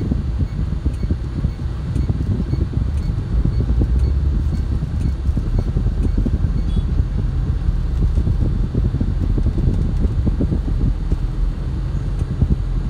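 Steady low rumble of car cabin noise while driving, the engine, road and air fan blending together.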